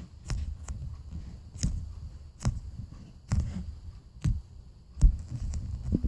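Hands squeezing and handling a soft foam squishy toy close to the microphone: a run of soft low thumps with light crackles, about one a second.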